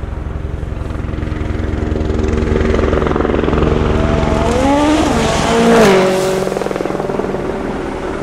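Ford Fiesta WRC rally car approaching flat out on a gravel stage, its engine note climbing in pitch as it nears, then dropping sharply as it passes the loudest point about six seconds in.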